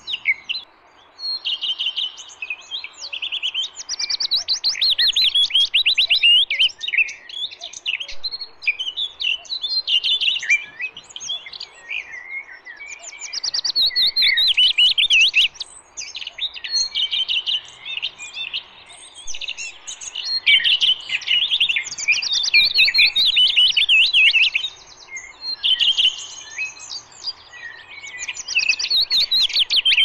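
Recorded songbird song played as a hunting lure: fast, high-pitched chirping and warbling phrases one after another, with brief pauses between bursts.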